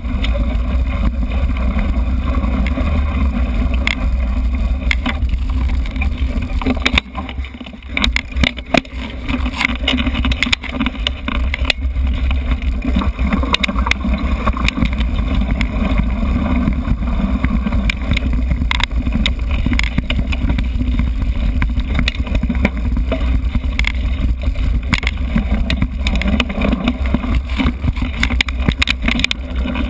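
Mountain bike riding over a dirt forest trail, heard through an action camera mounted on the rider or bike: a steady low rumble of wind and vibration with frequent rattling clicks from bumps. It eases off briefly about seven seconds in.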